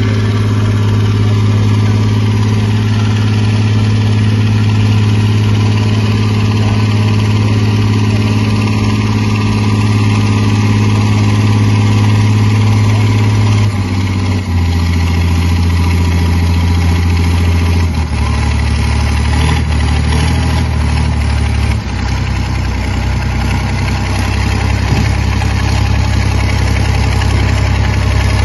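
Hürlimann H-6170T tractor's diesel engine running hard while pulling a weight-transfer sled. Its steady note drops to a lower pitch in steps about halfway through and twice more after that.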